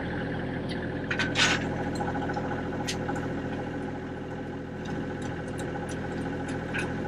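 Van cabin noise while driving: a steady engine hum with road noise, and a few brief clicks or rattles.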